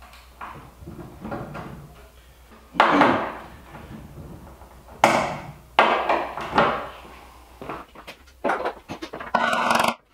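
Hand tools knocking and clattering against a wooden wine barrel: a few separate loud knocks, then a quicker run of clunks near the end as a hammer and punch are taken up.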